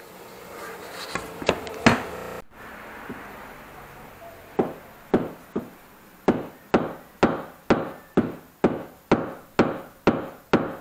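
Sanggot knife blade chopping into a hard surface, about a dozen sharp knocks roughly two a second, each ringing briefly. A few lighter clacks come in the first couple of seconds.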